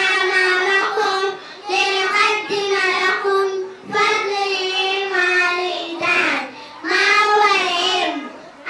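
Young children singing together into a microphone in short sung phrases, with brief breaks between them.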